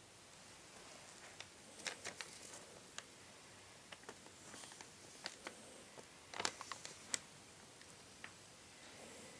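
Faint handling of a sheet of paper, heard as scattered soft clicks and rustles, with a small cluster about two seconds in and a louder one a little after six seconds.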